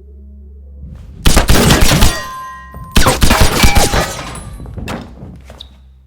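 Fight sound effects: two rapid flurries of hard hits and crashes, each about a second long, the second starting about three seconds in, with ringing tones among the impacts and a few smaller knocks trailing off after.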